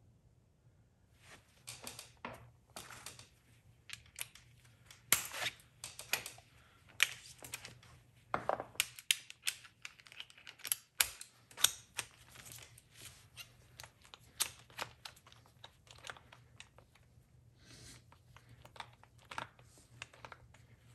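Irregular sharp clicks, knocks and rustling of hand tools being handled during brake work, starting about a second in.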